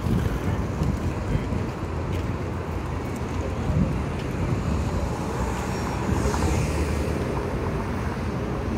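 Steady outdoor background noise with a low rumble and wind on the microphone.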